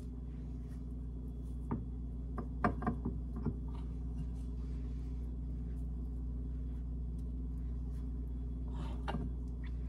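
A few short clicks and taps of a utensil against a crock pot as dumpling dough is scraped into it: a cluster about two to three and a half seconds in, and a couple more near the end. A steady low hum runs underneath.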